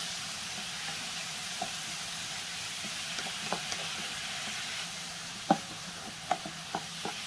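Carrots and onion frying in oil in a frying pan, sizzling steadily while they cook down, with a few light taps in the second half.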